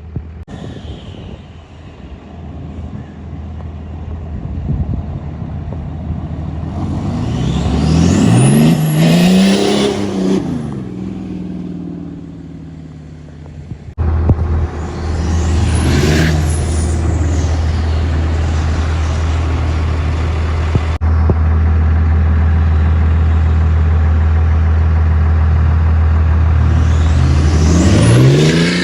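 Pickup truck engines revving hard while driving through deep snow, in several edited clips. The engine pitch climbs and falls about nine seconds in, and again around sixteen seconds and near the end, over a steady deep engine drone in the later clips.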